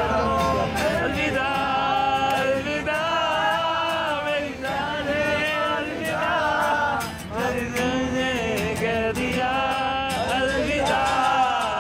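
A group of young men singing together in long, drawn-out notes that slide in pitch, to a strummed acoustic guitar.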